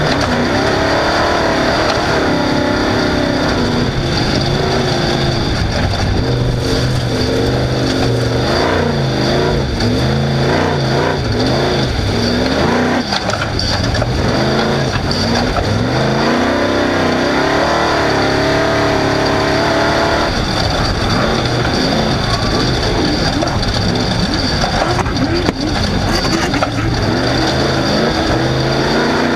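Off-road race car's engine running hard at race pace, its pitch rising and falling over and over as it revs up and backs off.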